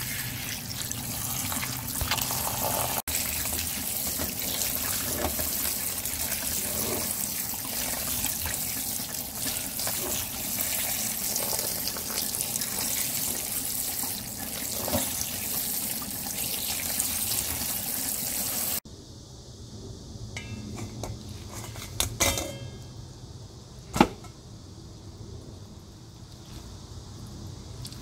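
Tap water running onto cooked jjolmyeon noodles in a stainless steel strainer while hands rinse and rub them. The water cuts off suddenly about two-thirds of the way through. After that come a few light clatters and one sharp knock of kitchenware.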